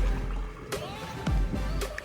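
Background music with deep bass hits that slide down in pitch, over sharp percussion.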